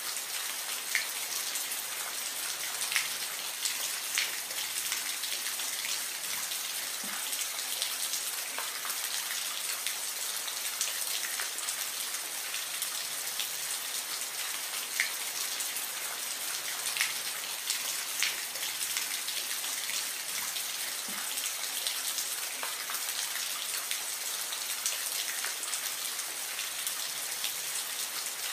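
Steady soft rain: an even hiss with individual drops ticking here and there.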